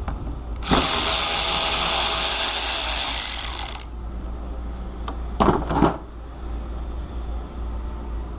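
A power tool with an 8 mm socket runs steadily for about three seconds, spinning off a fastener on a starter wiring connection, then a few sharp metal clatters follow.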